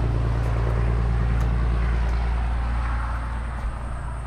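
Engine rumble of a passing road vehicle, holding steady and then fading about three seconds in.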